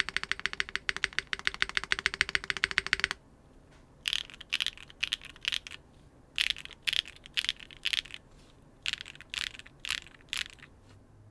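Mechanical keyboard with Gateron Sage linear switches on a carbon fiber plate with no foam, typed on fast for about three seconds. Then the keys are pressed one at a time, about two a second, in groups of four.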